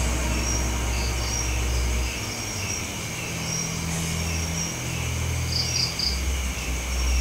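Insects, crickets by the sound of it, chirping in short pulses that repeat evenly over and over. Beneath them runs a low rumble that eases off for a few seconds in the middle.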